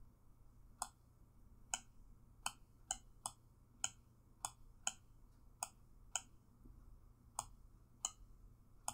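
Computer mouse clicking: short, sharp single clicks at irregular intervals, roughly one or two a second, over a faint low hum.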